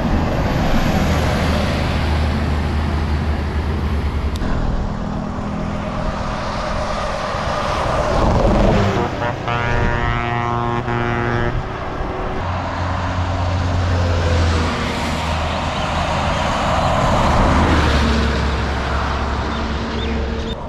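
Buses going by at speed, engine hum and road noise swelling as one passes. Midway, a horn with several tones at once sounds for about two seconds.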